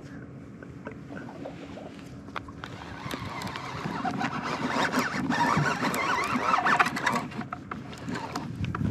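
Outboard motor of a passing john boat running, its sound swelling from about three seconds in and easing off near the end.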